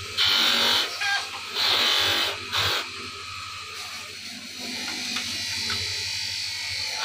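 Motor-driven cloth buffing wheel polishing a bone-handled knife: the knife is pressed against the spinning wheel in three or four short bursts of rushing polishing noise over the first three seconds. After that the wheel spins free with a quieter, steady motor hum.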